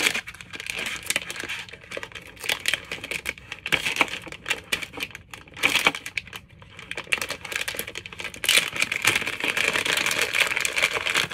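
Clear plastic bag crinkling as it is handled and opened, with light clicks of the small aluminium bit-holder pieces knocking together inside. The crinkling is densest and loudest in the last few seconds.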